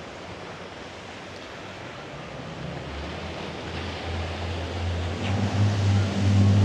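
Surf and wind, with a motorboat's engine hum coming in low about halfway through and growing steadily louder as the boat approaches.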